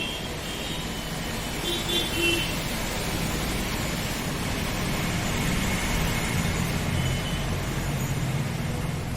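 Road traffic noise with a motor vehicle's engine running, a steady rumble that grows a little louder in the second half. A few short high-pitched tones sound in the first couple of seconds.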